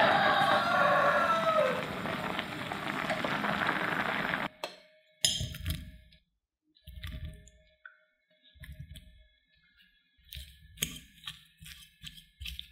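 Water at a hard rolling boil in a pan of cubed potatoes, a loud steady bubbling that cuts off abruptly about four and a half seconds in. Then come a few soft knocks as boiled potato pieces go into a glass bowl. Near the end a fork mashes potato with quick clinks against the glass.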